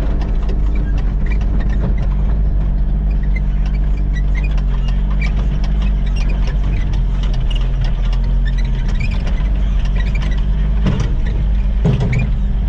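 A vehicle engine running steadily, with scattered light clicks and rattles over it.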